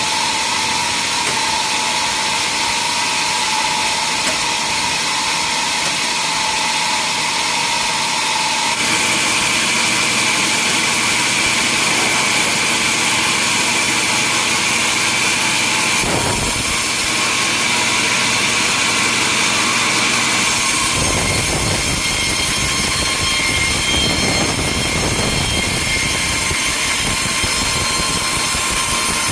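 Sawmill machinery running: a loud, steady mechanical noise with a high, even whine, its sound changing abruptly three times as one machine gives way to another.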